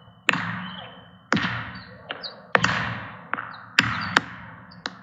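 AI-generated (FoleyCrafter) tennis ball bouncing on a hard court: about six sharp impacts at uneven intervals, mostly about a second apart with two close together near the end, each trailing off in a fading hiss.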